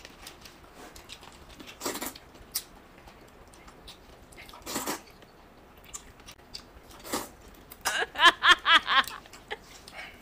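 Eating rice noodles: short noisy bursts of slurping every two to three seconds, with chewing between. Near the end comes a quick run of wavering, pitched vocal sounds, the loudest thing heard.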